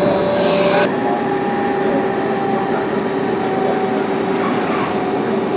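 CNC lathe running with a steady machine whine; a high hiss cuts off suddenly about a second in.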